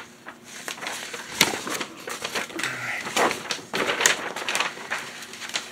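Paper instruction sheet being turned over and refolded by hand, rustling and crinkling with irregular crackles, the loudest about a second and a half in and again near four seconds.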